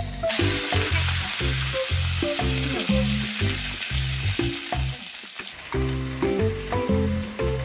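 Spicy sauced chicken feet and chicken tenderloin sizzling loudly in butter in a frying pan as they are stirred with chopsticks, the sauce spattering. The sizzle drops away about five and a half seconds in, under steady background music.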